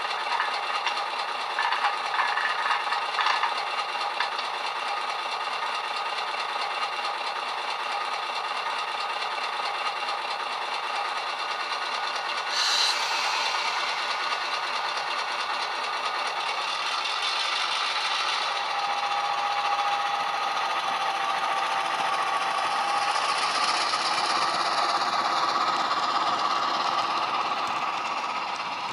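Recorded EMD 8-567 diesel engine sound played by a model locomotive's DCC sound decoder through a small speaker, with no deep bass. The engine runs steadily with a short sharp hiss about thirteen seconds in, then builds in power as the model pulls away, with the rattle of the model train running on the track.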